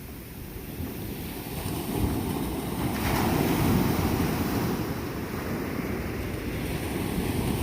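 Ocean surf washing onto a beach, swelling louder about three seconds in as a wave breaks, with wind rumbling on the microphone.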